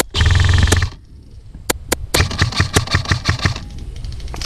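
Airsoft electric rifle (AEG) firing: a full-auto burst with the gearbox buzz under the rapid shots for just under a second at the start, two single shots a little later, then a longer run of rapid fire lasting over a second.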